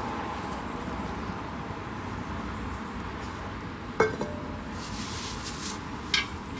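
A hard plant pot clinks sharply about four seconds in with a short ring, followed by a brief scraping rustle and another light knock, over a steady background hum.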